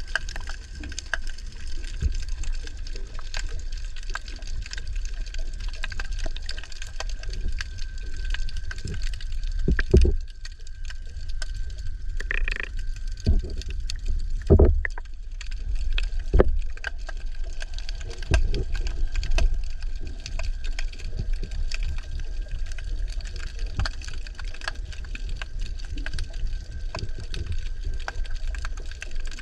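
Muffled underwater sound picked up by a submerged camera: a steady low rumble of moving water with a faint steady hum, broken by a few sharp knocks and clicks about ten, fourteen and sixteen seconds in.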